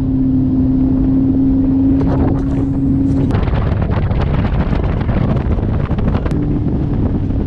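Boat's outboard motor running under way, with wind on the microphone. A steady engine hum fades about three seconds in, leaving mostly rushing wind.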